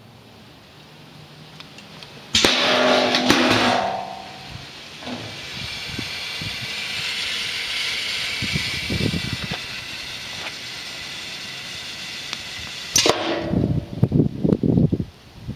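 Pneumatic trash-can prop: a sudden loud burst of air about two seconds in, then a long steady hiss. About thirteen seconds in comes another burst, followed by a quick run of metallic knocks and rattles from the galvanized can and lid.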